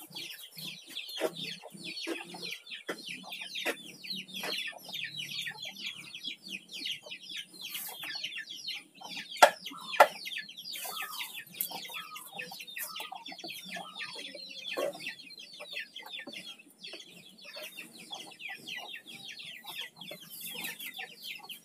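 Chickens clucking, with a fast, continuous run of high peeps. Two sharp knocks half a second apart sound near the middle and are the loudest events.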